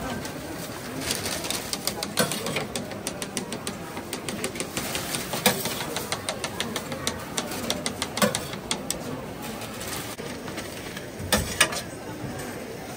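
Irregular clicking, tapping and scraping of tools on the metal mold of a small-cake baking machine as the baked cakes are cleared out and the mold is brushed with oil, with a few louder knocks about two, five, eight and eleven seconds in.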